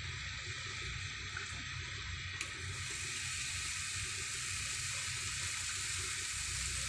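Minced-meat gola kebabs sizzling in a few spoonfuls of hot cooking oil on a tawa: a steady frying sizzle that thickens about three seconds in, as more kebabs are laid into the oil.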